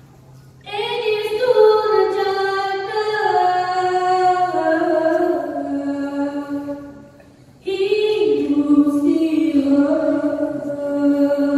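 Unaccompanied dikir barat singing by young voices: two long melismatic phrases, each stepping downward in pitch, with a short break about seven seconds in.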